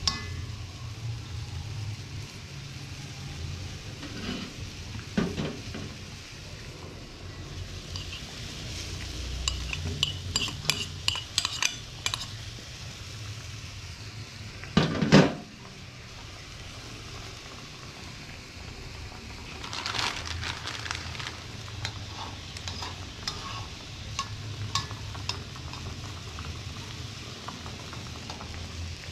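Food sizzling in a pan while a metal utensil stirs it, clinking and scraping against the pan in bursts. One louder knock comes about halfway through.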